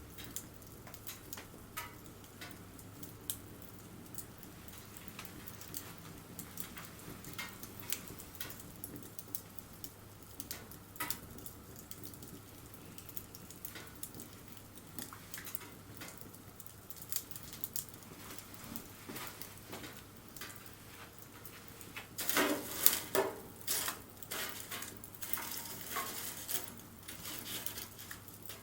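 Wood campfire crackling, with scattered sharp pops and a denser run of louder crackles late on.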